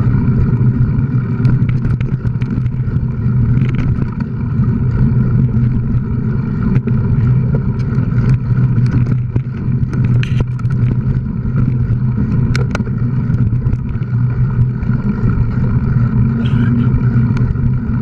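Steady low hum and rumble of movement along a bumpy dirt trail, with scattered sharp knocks and rattles, the clearest about ten seconds in and again near thirteen seconds.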